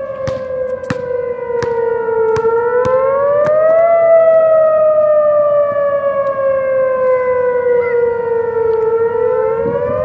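Whelen 2810 electronic outdoor warning siren sounding its wail tone during a test. The pitch rises about two and a half seconds in, falls slowly for about five seconds, then rises again near the end, with a second, slightly lagging copy of the wail overlapping it.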